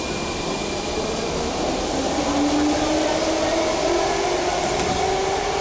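81-71 metro train standing at the platform with its doors open, its on-board machinery whining over a low rumble, two tones slowly rising in pitch.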